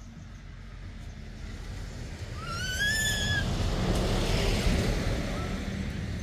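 A road vehicle passing: a low rumble and hiss builds, peaks about two thirds of the way through, then fades. About two and a half seconds in there is a short high squeal that rises and then holds.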